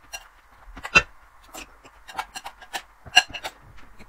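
A spoon scraping and clicking against a glass bowl while stirring and scooping a crumbly mixture of crumbled taosu (walnut shortbread). There is a run of small scrapes and clicks, with two sharp, louder clinks: one about a second in and one about three seconds in.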